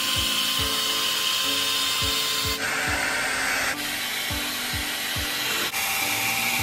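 A 1200 W Remington Hydraluxe blow dry brush running, a steady rush of hot air with a faint motor whine, as it is pulled through long damp hair. The air sound briefly turns brighter around three seconds in. Background music with a steady beat plays underneath.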